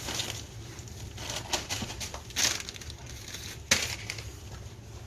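Irregular clicks, scrapes and rattles of hands working parts and tools on an ATV, with one sharp click a little before the end, over a steady low hum.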